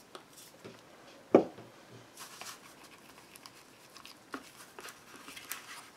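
Palette knife stirring thick texture paste and green paint in a small plastic container: soft scraping and squishing with scattered clicks, and one sharp knock about a second and a half in.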